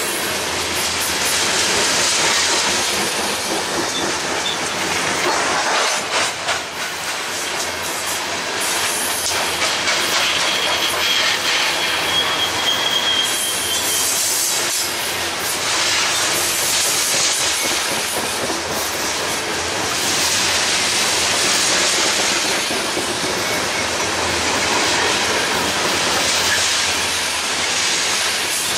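A long train of rapid-discharge hopper cars rolling past close by, with steady wheel-on-rail noise. A thin, high wheel squeal rises for a few seconds about halfway through.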